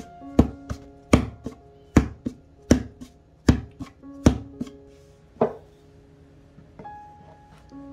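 Hands knocking and pressing pizza dough flat against a floured wooden board: sharp knocks about every three-quarters of a second with lighter ones between, stopping about five and a half seconds in. Background music with sustained notes plays throughout.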